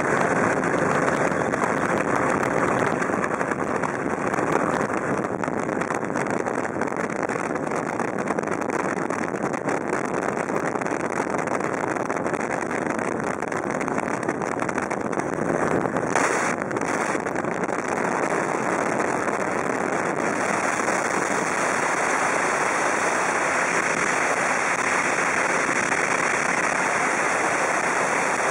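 Steady rushing noise of wind and engine aboard a flying Eagle powered hang-glider trike, with a brief flare about halfway through.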